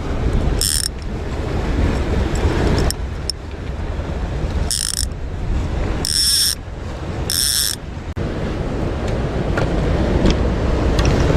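Steady rumble of a boat under way, with wind and water noise. Four short, shrill, high-pitched tones cut through it: one about a second in, and three more close together between about five and eight seconds.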